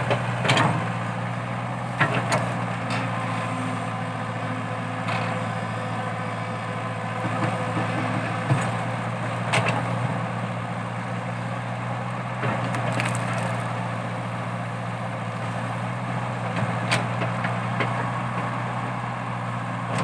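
Komatsu PC80 hydraulic excavator's diesel engine running steadily under load while digging out a eucalyptus stump, with scattered sharp cracks and knocks every few seconds.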